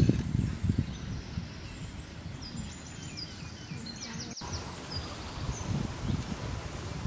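Outdoor ambience of birds calling in short repeated chirps that glide down in pitch, over a low rumble that is loudest in the first second. The sound breaks off sharply at an edit a little after four seconds in.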